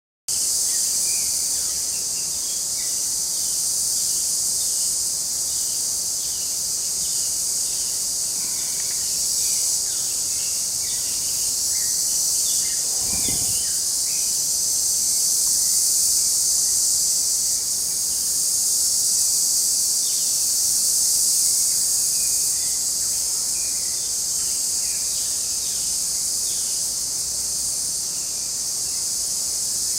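Steady, loud chorus of insects, crickets or cicadas, high-pitched and unbroken, with faint short bird chirps scattered through it. A brief low rumble sounds a little under halfway through.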